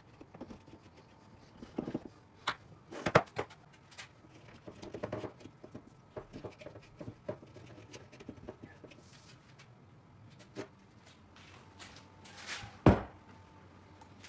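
Scattered knocks and clicks of objects being handled and set down, with softer rustling between them; the loudest knocks come about three seconds in and near the end.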